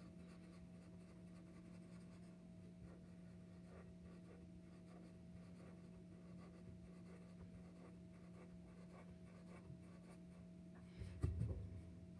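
Black permanent marker scratching faintly on paper in short strokes, over a steady low hum. Near the end, a louder brushing knock as the sheet of paper is slid on the table.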